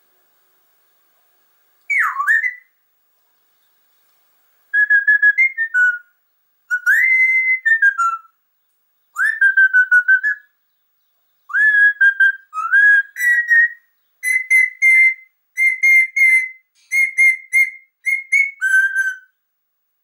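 Loud whistled phrases about a second long each, repeated with short pauses. The pitch glides up and down and flutters in quick pulses, and the later phrases are higher and more even.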